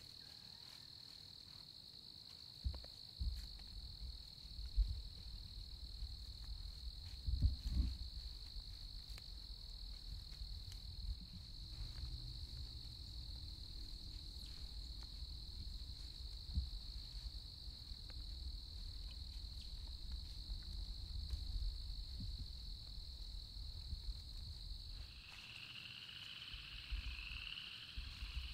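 Insect chorus holding one steady high-pitched drone, over a low rumble with a few soft thumps in the first several seconds. Near the end the high drone stops and a lower, wavering pulsing call takes over.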